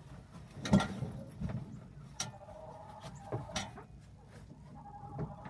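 Scattered knocks and bumps of someone moving about and handling things in a wooden chicken coop. The loudest knock comes just under a second in, with a few lighter ones after it.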